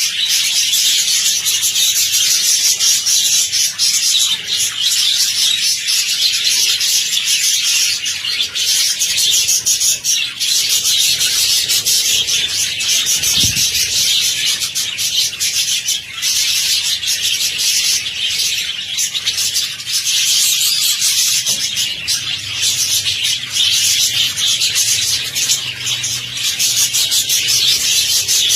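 Hundreds of budgerigars chattering and chirping at once in a breeding colony, a dense, continuous high-pitched din with no let-up.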